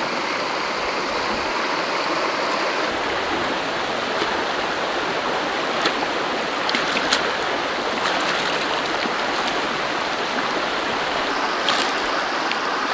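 Shallow stream running over a low rocky cascade: a steady rush of water. A few brief sharp ticks sound over it.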